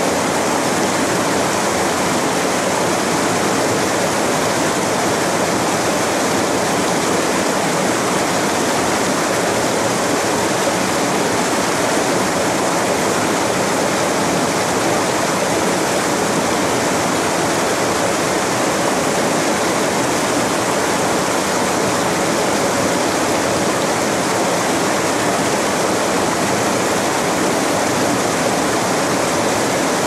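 Fast stream rushing and splashing over boulders in white-water rapids: a steady, even rush of water.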